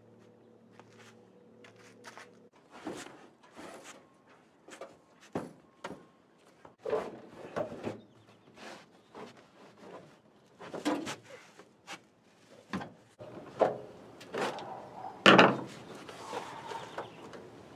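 Irregular knocks, bumps and scrapes of a car seat and interior trim panel being handled and pulled out of an old car body, with one loud thump about 15 seconds in.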